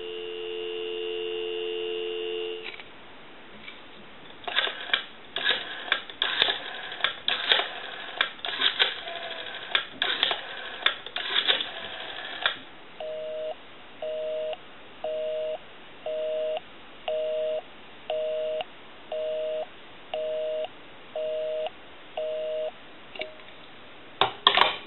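Telephone dial tone that stops after a few seconds, then the clicking of a rotary dial as a number is dialed on a 202 rotary desk telephone. It is followed by a busy signal: about eleven two-note beeps, one a second, meaning the called line is busy.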